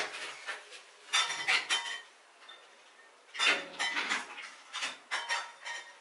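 Plastic bottles and containers clacking and rattling as they are set into a plastic crate on a metal wire shelf. The clatter comes in two bursts: one about a second in, and a longer one from about three and a half seconds.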